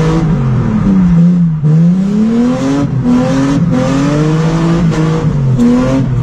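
Mercedes-Benz C280 (W202) engine with its exhaust open from the catalytic converter back, heard from inside the stripped cabin while the car is drifted. The revs climb and fall again and again, with a few brief sharp throttle lifts.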